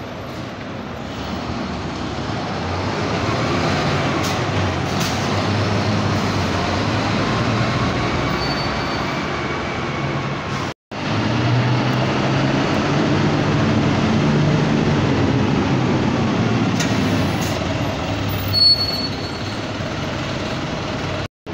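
Diesel city buses running as they pull through the terminal, a steady engine drone, with a brief high squeal near the end.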